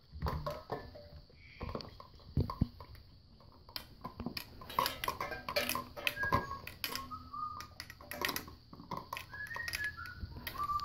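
Hanging plastic cups and metal paint cans on a dog's toy station knocking and clattering as a Labrador puppy mouths and pulls at them. From about halfway, short metallic pings ring out among the knocks.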